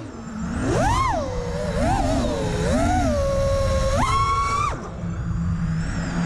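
An FPV quadcopter's brushless motors whining, the pitch swinging up and down with the throttle. About four seconds in they hold a high steady whine, then the throttle is cut and the whine drops away to a low hum as the drone flips.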